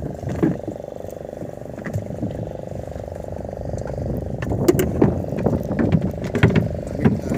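Small fishing boat's engine running steadily, with scattered sharp knocks and clicks of handling on the fibreglass deck that grow busier in the second half.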